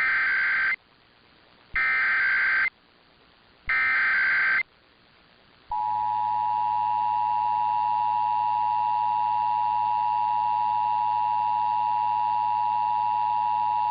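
Emergency Alert System SAME header: three short bursts of warbling data tones, each just under a second and about two seconds apart. About six seconds in, the steady two-tone EAS attention signal begins and holds, opening a required monthly test.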